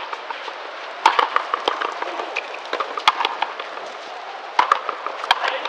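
Frontenis rally: the rubber ball struck by racquets and hitting the fronton wall, a series of sharp cracks a second or two apart.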